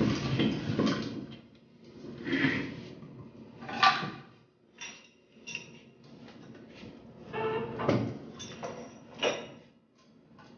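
Irregular scraping, clattering and sharp knocks of hand work on hard parts, in uneven bursts with short pauses; the sharpest knocks come about four seconds in and again near the end.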